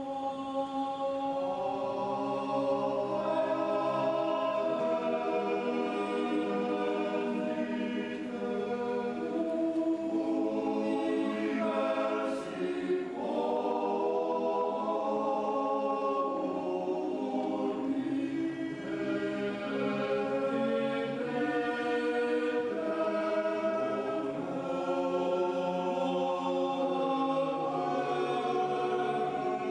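Men's choir singing sacred Latin music for a High Mass, several voices held and moving together. The singing starts right at the beginning.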